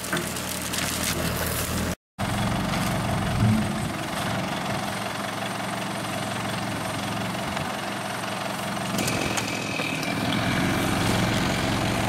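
Backhoe engine running steadily at a low idle-like pace, with a brief louder moment about three and a half seconds in.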